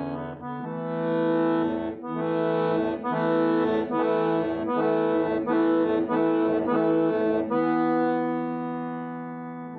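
Accordion (Kazakh syrnai) playing a kui, a Kazakh instrumental piece. It plays full sustained chords with a run of evenly repeated chords, about two a second, through the middle, then one long held chord that fades away near the end.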